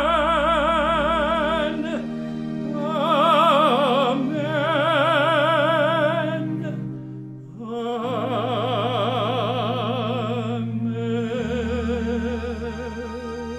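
Tenor voice singing long held notes with a wide vibrato over sustained organ chords. The organ's low bass notes step downward through the passage, and the voice pauses briefly about seven seconds in before its last phrases.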